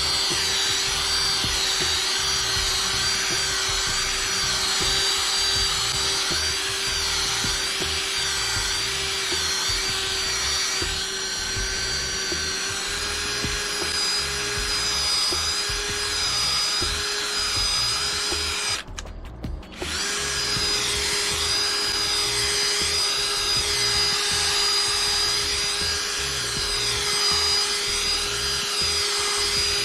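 Electric drill spinning a Velcro-backed polishing pad, buffing polish on a matte vinyl decal: a steady motor whine over the rubbing of the pad, which stops briefly about two thirds of the way through and then starts again.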